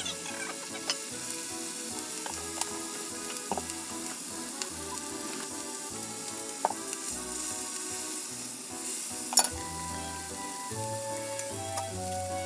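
Slices of pork loin sizzling steadily as they fry in a small square pan, with a few light clicks and knocks of handling over it and one sharper click about nine seconds in.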